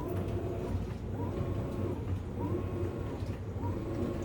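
Maytag MVW7232 top-load washing machine running its first load: a low hum under a motor whine that rises, holds and drops again in a repeating pattern about once a second.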